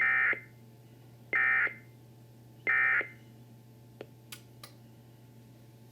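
Emergency Alert System end-of-message (EOM) data signal: three short bursts of warbling digital tones about 1.35 s apart, marking the end of the alert broadcast. A few faint clicks follow.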